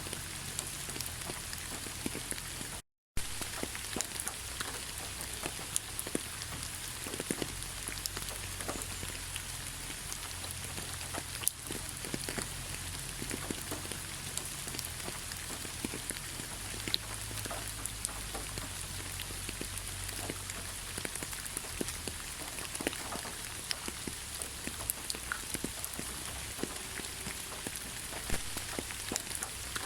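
Heavy rain falling steadily, a constant hiss scattered with the sharp ticks of individual drops. It cuts out to silence for a moment about three seconds in.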